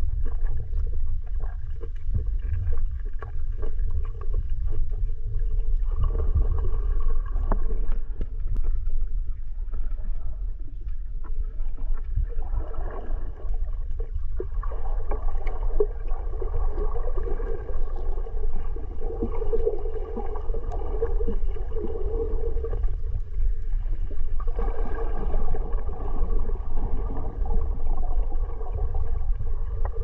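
Underwater sound picked up by a submerged camera: a steady low rumble of moving water, with a fainter gurgling, whirring layer that swells several times.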